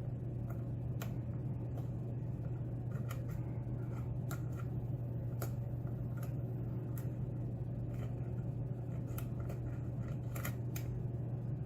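Faint, irregular metallic clicks and ticks of a lock pick lifting pins in a Schlage pin-tumbler lock, over a steady low hum.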